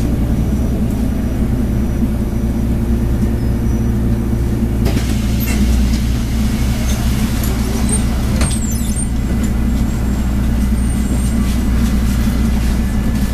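City bus engine running with road noise, heard from inside the passenger cabin. A broader hiss comes in about five seconds in, and there are a few clicks and a brief high squeal near nine seconds.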